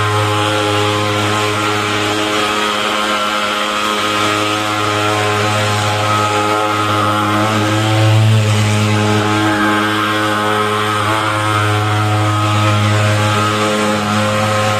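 Portable pulse-jet thermal fogging machine running continuously: a loud, steady buzzing drone with a strong low hum, its pitch wavering slightly.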